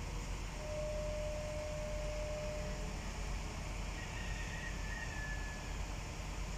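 Mobile crane's diesel engine running steadily while it holds a precast concrete bridge girder on its hook, with a faint high tone for about two seconds from about four seconds in.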